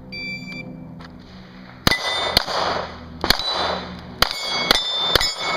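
A shot-timer start beep, then six handgun shots fired in quick strings, most of them followed by the ringing clang of a hit steel plate.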